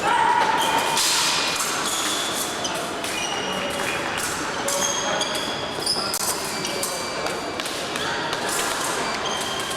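Fencing-hall ambience: scattered clicks, knocks and taps mixed with many short, high metallic rings at differing pitches, over a steady hall background with a faint murmur of voices.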